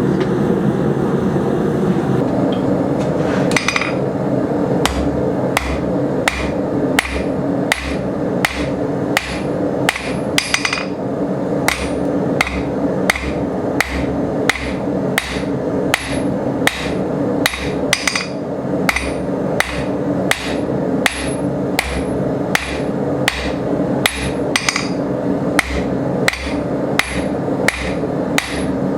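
Hammer blows on steel over an anvil, starting a few seconds in and going on at a steady pace of about two a second, each strike leaving a short high ring, over a steady roar in the background.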